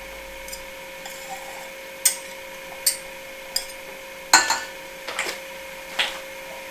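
Whisk and small glass bowl clinking against a stainless steel mixing bowl as butter is tipped and scraped in: about half a dozen sharp clinks, the loudest about four seconds in, over a faint steady hum.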